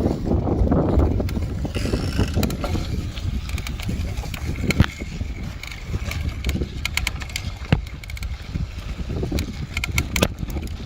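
Mountain bike being pedalled, with sharp irregular crackling clicks from the bottom bracket area under pedalling load over a low rumble of riding: the typical creak of a bottom bracket that needs servicing.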